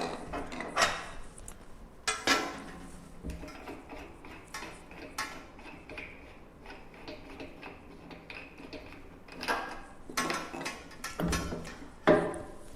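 Metal parts of a stainless steel meat grinder being handled: irregular clinks and knocks, with a cluster of them near the end.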